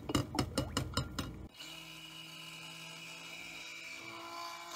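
A run of quick knocks against a glass mixing bowl as a stick blender is worked through the oils and lye water. About a second and a half in, the stick blender's motor switches on and runs with a steady hum, blending the cold process soap batter.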